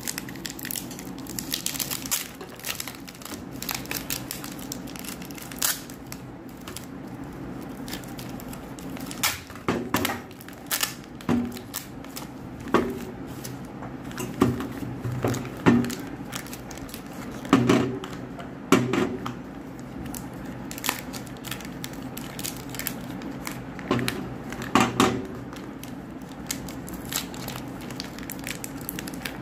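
Paper soap wrappers crinkling and tearing as bars of Lux soap are unwrapped by hand, with scattered sharp crackles. Now and then a louder knock as a bar or wrapper is set down on a steel plate.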